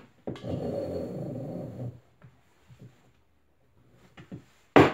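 Mesh fabric sleeve dragged along a steel frame rod, a rough rasping slide lasting about a second and a half. Then a few faint ticks, and a sharp knock near the end.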